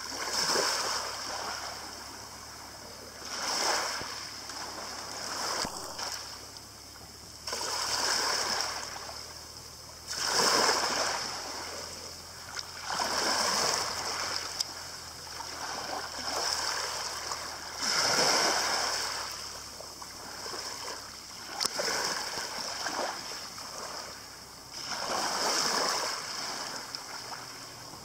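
Small waves lapping and washing up a shingle beach, each wash swelling and fading away every two to three seconds.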